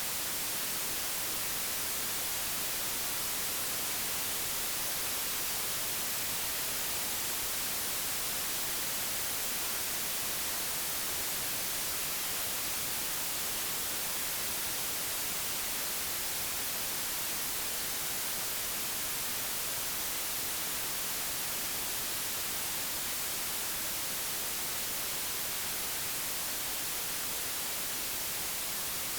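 Steady white noise: an even, unchanging hiss, brightest in the high frequencies, generated digitally.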